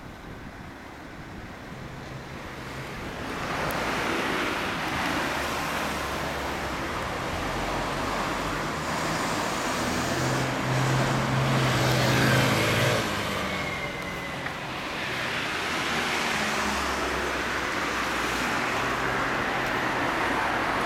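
Road traffic passing on the street: engine and tyre noise swelling up, loudest about twelve seconds in, easing off briefly, then building again.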